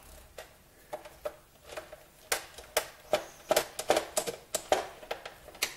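Irregular run of sharp plastic clicks and taps from handling the upside-down Coleco Adam keyboard's plastic case, thickest in the middle.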